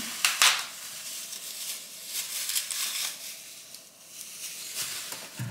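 Crinkling and rustling of a thin plastic produce bag being handled, with a few sharp crackles in the first half second and fainter crinkles after.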